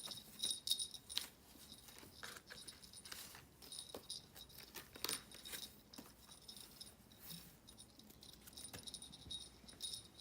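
Small jingle bell tinkling faintly on and off, with scattered light clicks and rustles.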